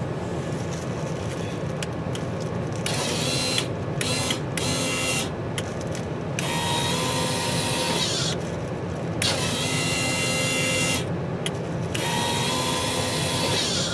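A small electric motor runs in five or six bursts of one to two and a half seconds each, whining and hissing, over a steady low hum.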